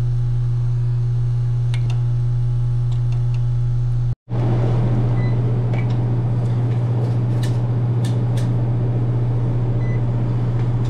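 A steady low electrical hum that drops out for an instant about four seconds in. After it resumes, a few light clicks and taps come from handling the meter and test leads.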